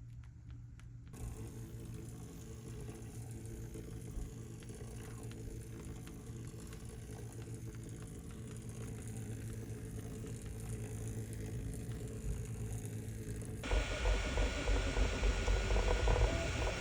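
Brush bot's small vibration motor buzzing steadily as the toothbrush head rattles across a hard surface. It gets louder and more rattly for the last few seconds.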